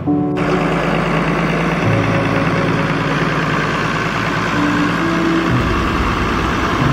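Diesel engine of a modern Massey Ferguson tractor running steadily at idle.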